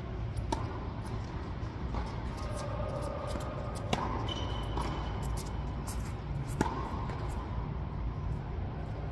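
Tennis ball struck by racquets during a doubles rally on an indoor hard court: a serve about half a second in, then sharp hits near four seconds and again past six seconds, with lighter ball bounces between. A steady low rumble of the hall runs underneath.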